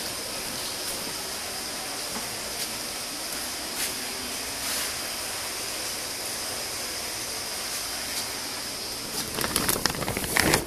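Steady rushing water noise from a large recirculating catfish tank, its surface churned by flow and aeration. Near the end, irregular footsteps come in over it.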